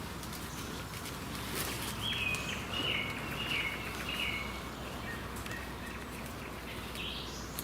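A small songbird chirping a run of short, repeated high notes about two to five seconds in, over steady low background noise.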